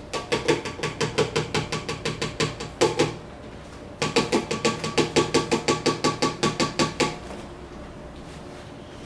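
Stand mixer kneading wholemeal bread dough in its stainless steel bowl: rapid, even knocking of about five strokes a second rings on the bowl over the motor's low hum. The knocking comes in two runs of about three seconds with a short pause between, then stops and leaves only the hum.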